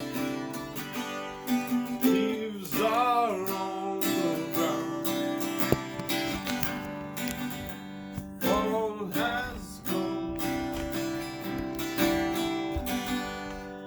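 Acoustic guitar strummed and picked, playing a song's introduction with sustained ringing chords. A few brief wordless notes that bend and waver in pitch are heard about two and about eight and a half seconds in.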